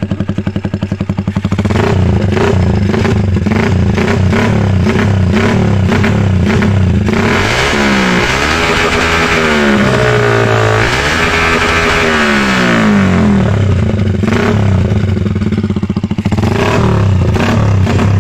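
Honda TMX125 single-cylinder four-stroke engine running through a homemade open exhaust made from a Baygon insecticide can: it idles with a steady beat, is revved up and down twice in the middle, then settles back to idle with a couple of short blips of the throttle near the end.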